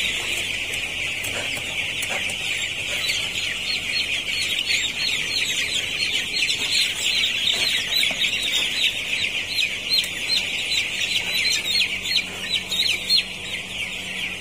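A large flock of ten-day-old broiler chicks peeping: a dense, unbroken chorus of many high, short, falling peeps.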